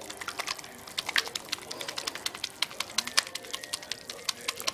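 Irregular sharp clicks and taps, several a second.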